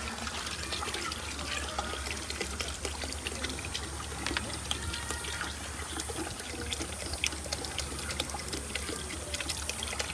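Water poured from plastic bottles into an aluminium stockpot, trickling and splashing into the liquid already in the pot.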